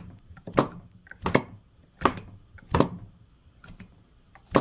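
Sharp metallic clicks, each with a short ring, about one every 0.7 s, then a pause and one more near the end: a small model flame-licker engine clicking as its flywheel is turned over by hand.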